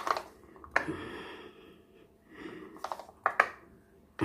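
A spoon scraping and tapping in a bowl of flour batter while a potato patty is coated: a few sharp clicks, about three of them close together near the end, with soft scraping between.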